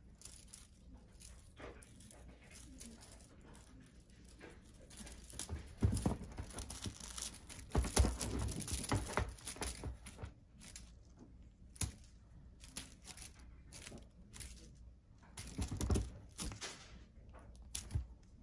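Rustling, scratching and crinkling from a kitten playing on a plush fabric blanket with a feather wand toy, in scattered bursts with sharp clicks. There is a louder stretch in the middle and another near the end.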